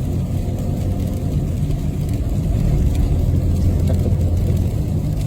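Vehicle driving, heard from inside the cab: a steady low engine and road rumble.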